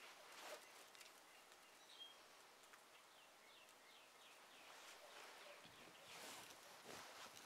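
Faint songbird calls: a short chirp, then a quick run of about eight descending notes about three seconds in, over a very quiet winter background, with a couple of soft rushing swells near the end.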